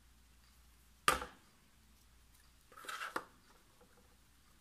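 A single sharp knock about a second in as the plastic liquid-glue bottle is set down on the scoring board, then a short rustle and scrape of card stock being pressed onto a small cardboard box, ending in a light click.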